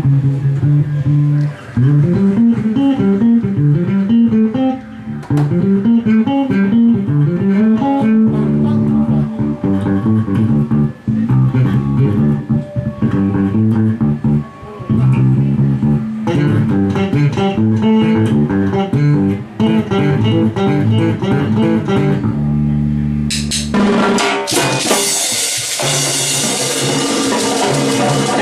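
Electric bass guitar playing a merengue line of repeated rising runs of notes, with congas under it. About three quarters of the way through, the percussion comes in loudly with cymbal and cowbell.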